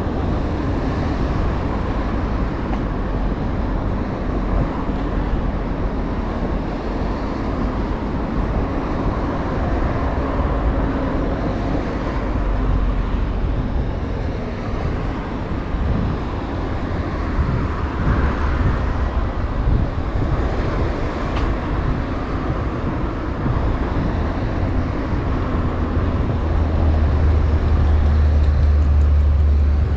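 Steady road traffic from a busy city street, cars passing continuously. A heavier vehicle's deep rumble swells near the end.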